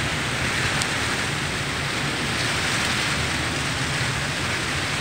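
Steady rain falling, an even continuous hiss, with a low rumble underneath.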